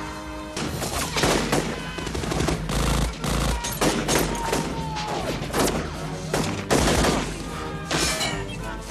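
Film-soundtrack gunfire in a street shootout: a rapid, overlapping volley of pistol and automatic-weapon shots that starts about half a second in and keeps going.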